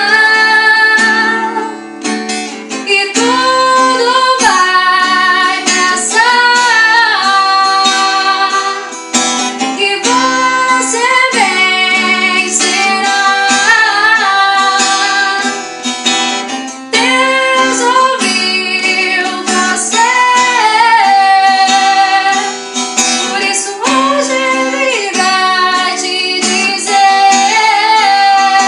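A woman singing a hymn in Portuguese with acoustic guitar accompaniment, holding long notes with vibrato.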